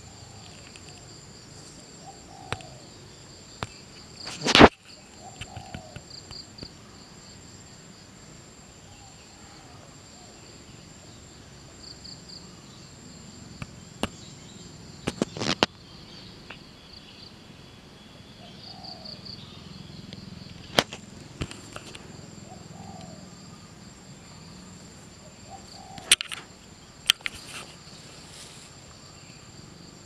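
Insects (crickets or cicadas) shrilling steadily in the field, with faint short bird calls every few seconds. Sharp clicks and knocks stand out over it, the loudest about four and a half seconds in, with others near the middle and a quick cluster near the end.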